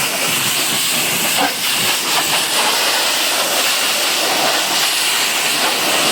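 High-pressure washer jet spraying water onto a car, a steady loud hiss without a break.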